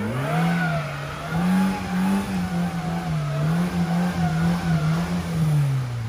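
Off-road vehicle's engine revving hard under load, the revs wavering up and down, then falling away near the end.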